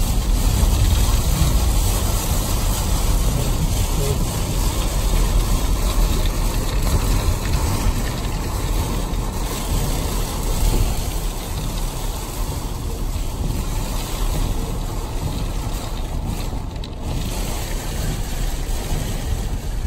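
Wind-driven rain from a hurricane beating on a moving car, mixed with tyre and road noise, heard from inside the cabin as a steady, dense noise that is heaviest at the low end.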